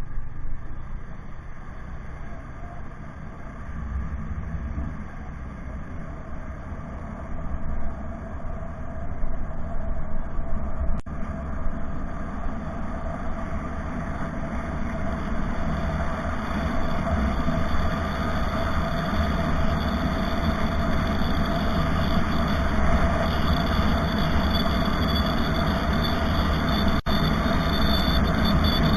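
A vehicle on the move: a steady engine and road rumble with a constant drone, growing louder and brighter over the second half. Two momentary dropouts break it.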